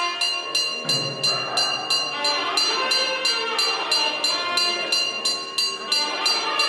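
Temple bell rung rapidly and steadily, about four even strikes a second, its ringing tones carrying on between strikes.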